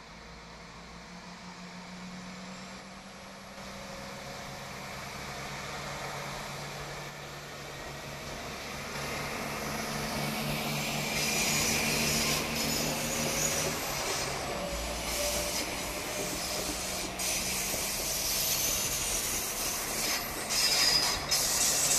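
PESA SA134 diesel railbus pulling away from the platform and passing close by, its diesel engine running with a steady low hum that grows louder as it picks up speed. From about halfway, sharp wheel clicks over the rail joints join in, loudest near the end.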